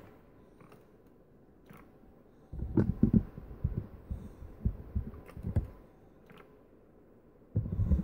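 Soft, irregular low thumps and rubbing from a handheld camera being moved about. The first couple of seconds are almost silent. The thumps come from about two and a half seconds in until about six seconds, and again near the end.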